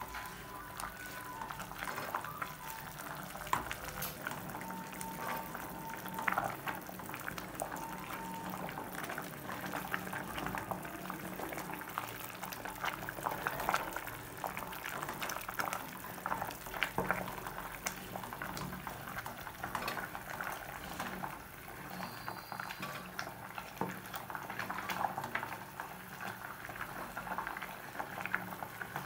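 Nettle soup boiling and bubbling in a metal pot, with a wooden spoon stirring through it and knocking against the pot's side now and then.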